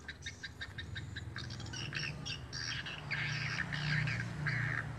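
Swiftlet chirps and twitters: the swiftlet house's call-sound lure playing from its rooftop speaker, mixed with calls of swiftlets circling the building. Quick clicky chirps at first, then a denser run of repeated chirping calls from about three seconds in over a low hum.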